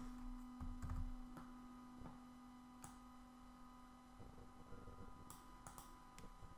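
Quiet room tone with a steady low hum that slowly fades and stops near the end. Scattered faint clicks of a computer mouse and keyboard run through it.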